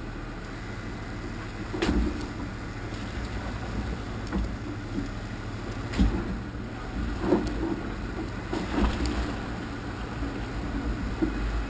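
Off-road vehicle crawling through a flooded, rocky trail: a steady low engine and drivetrain rumble, broken by a few knocks and jolts as the tires meet rocks under the water.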